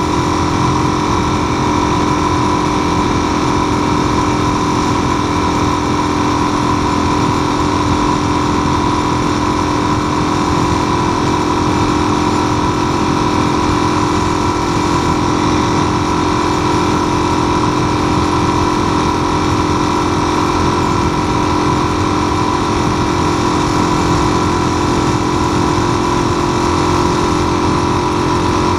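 Motorcycle engine running at a steady cruise, its note holding level with no gear changes, over a constant rush of wind and road noise.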